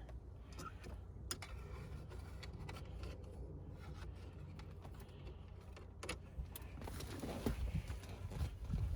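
Handling noise from a wire-fishing tool being pushed down behind the car's interior trim: small clicks, rustles and scrapes of wire on plastic panels, over a steady low hum. The scrapes and knocks get louder near the end.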